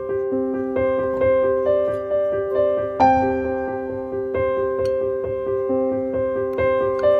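Background music: a gentle piano melody, notes struck and left to ring in a flowing rhythm, with a fuller chord about three seconds in.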